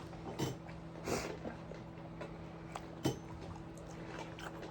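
Faint, scattered eating sounds: soft chewing and mouth noises, a short breathy burst about a second in and a small click about three seconds in, over a steady low hum.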